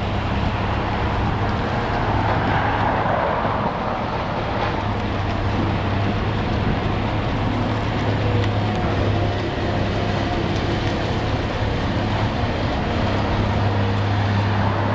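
Caterpillar 345BL hydraulic excavator's diesel engine running steadily under load while it digs.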